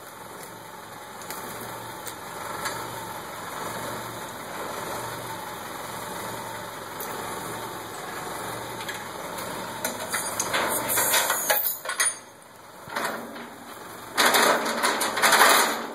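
Ford 655A backhoe engine idling steadily. Twice near the end, loud bursts of clattering and clinking break in, from the steel chains and bridge frame being handled at the loader bucket.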